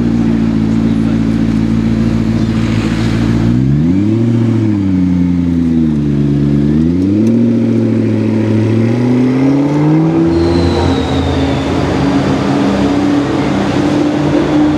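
McLaren P1's twin-turbo V8 running steadily at low revs, then revving as the car pulls away: the pitch rises, sinks back, and climbs again for several seconds. From about ten seconds in, the engine runs steadily again.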